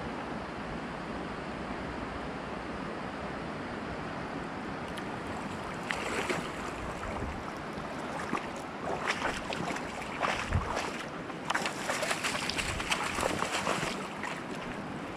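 Steady rush of river water over a shallow stony bed. From about six seconds in until near the end, irregular splashing and crunching of wading steps through shallow water and onto a pebble shingle bank.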